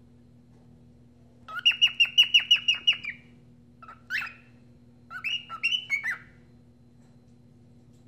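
Cockatiel whistling: a quick run of about nine short falling notes, then a single note, then a shorter phrase of a few notes.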